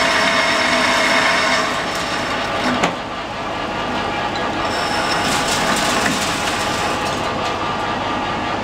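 Metal lathe boring a 4140 steel hollow bar: a steady machining noise with held tones from the cut. The sound eases about two seconds in, with a sharp click just before three seconds, and the lathe keeps running more quietly after that.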